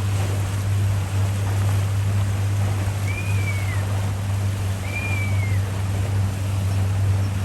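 Pontoon boat motor running steadily under way, with water and wind rushing past. About three and five seconds in, two whistled osprey calls sound over it, each rising then falling.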